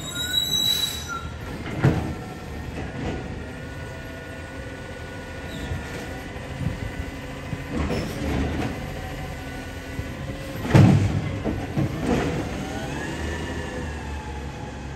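CNG automated side-loader garbage truck collecting bins: engine running under a steady hydraulic whine, with loud metallic bangs about two seconds in and again near eleven seconds as carts are emptied into the hopper.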